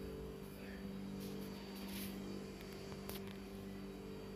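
A steady low hum, like a motor or electrical appliance running, with a few faint brief rustles or clicks in the middle.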